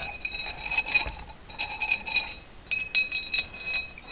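Steel valve and a thin metal tool clinking and scraping against a small glass jar of thinners, the glass ringing in several short bouts, as grinding paste is cleaned off a freshly lapped valve.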